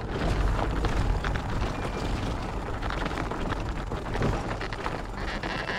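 Riding a fat bike over a rough dirt bush track: a steady low rumble of wind on the camera and tyres on the ground, with scattered knocks and rattles.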